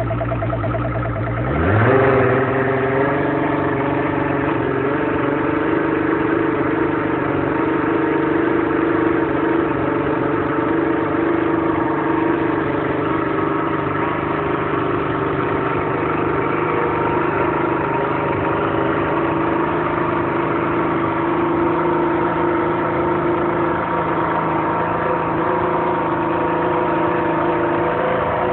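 Outboard motor with its cowling off starting up. It catches about a second and a half in, rises briefly in pitch, then settles into a steady idle.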